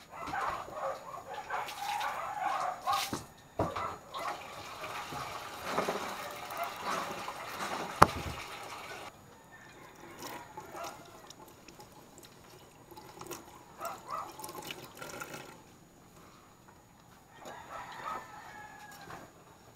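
A neighbour's dog barking noisily, the calls thickest in the first half and dying down after about nine seconds. A single sharp knock comes about eight seconds in.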